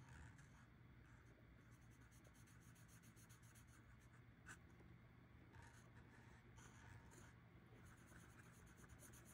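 Faint scratching of a felt-tip marker colouring in small hearts on a paper card, in runs of quick back-and-forth strokes with short pauses between them.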